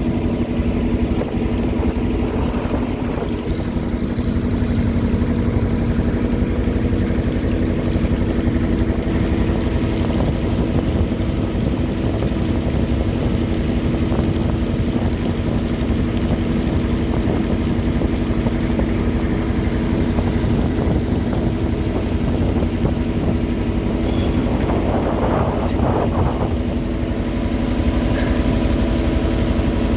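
A river boat's engine running steadily at an even speed, with a constant droning hum.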